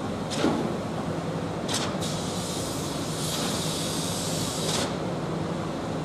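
Concrete boom pump trucks running steadily during a pour, a continuous engine drone with short hisses near the start and a longer hiss in the middle.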